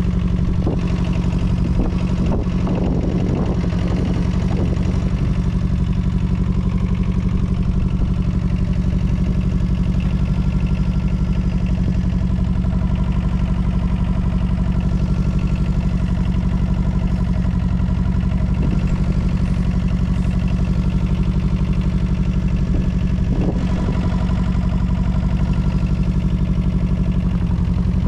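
Small Yanmar diesel engine of a Daewoo Solar 010 mini-excavator running steadily at constant speed, heard from the operator's seat. Short spells of clatter come about two to four seconds in and again near the end.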